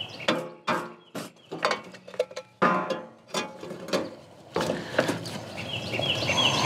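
Wooden baton knocking a Siege Stove cross member's point through the side of a thin metal can, about two knocks a second with the can ringing after some of them, and grating metal as the tool is twisted to open each air hole.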